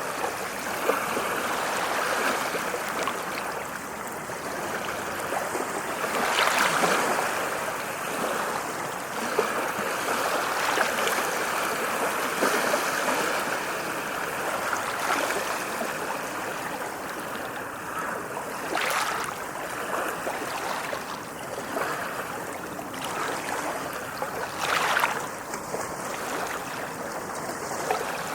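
Ocean waves washing against a shore: a continuous rush of surf that swells louder about a quarter of the way in, with two brief, sharper splashes later on.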